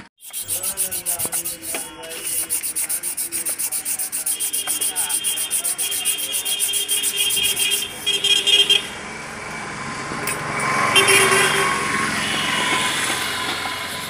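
Rapid, even scrubbing, about five strokes a second, as parts of a motorcycle's rear wheel hub are rubbed clean by hand. After about nine seconds it gives way to a steadier rushing noise, loudest about eleven seconds in.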